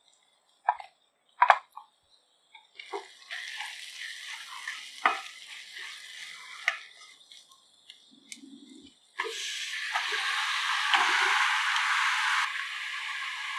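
Two sharp knocks as ground spice is tipped from a steel mixer jar into the kadai, then shallots and spices sizzling in oil while a spatula scrapes and clicks against the pan. About nine seconds in, raw chicken pieces go into the hot pan and a much louder sizzle takes over, easing off a little near the end.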